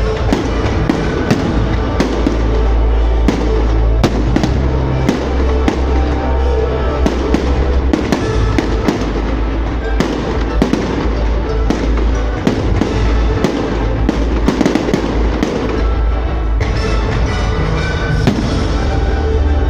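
Fireworks bursting in a rapid, continuous string of bangs and crackles over a loud music soundtrack.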